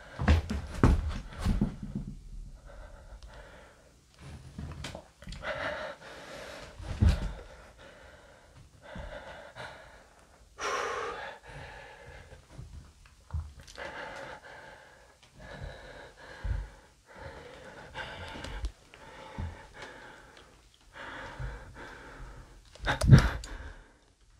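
A person breathing heavily and unevenly close to the microphone, with a few dull thumps: several in the first two seconds, one about seven seconds in, and the loudest near the end.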